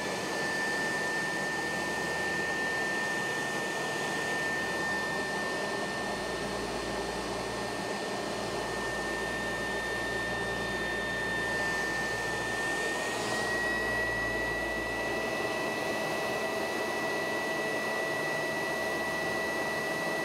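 Leaf blower running at full speed, a steady high whine over rushing air, as it blows air through a bladeless-fan ring to spin up a fire tornado. Its whine steps up slightly in pitch about two thirds of the way through.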